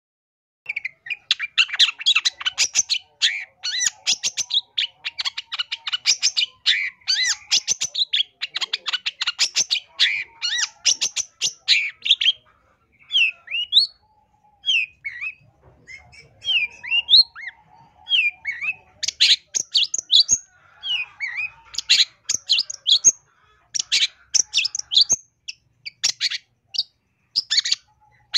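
Long-tailed shrike (cendet) singing a varied song packed with mimicked phrases: dense rapid chattering starting about a second in, then separate sweeping whistled notes with short gaps, then bursts of chatter again.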